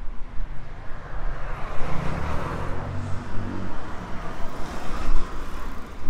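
A car driving past, its engine and tyre noise swelling to a peak about two seconds in and then fading away, over steady traffic background.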